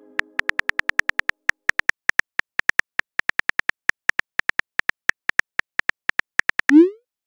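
Simulated phone keyboard key clicks from a texting-story app, short sharp taps at an uneven pace of about five a second as a message is typed. A short rising swoosh comes near the end as the message is sent.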